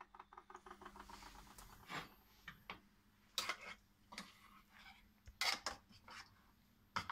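A spoon stirring and scraping a thick cheese-and-pepper paste in a plastic food-processor bowl, with a few short clinks against the bowl. It opens with a quick run of faint ticks.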